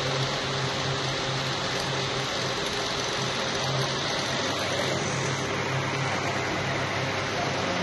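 Steady mechanical hum and whir of a slat conveyor running, with a low hum that pulses slightly.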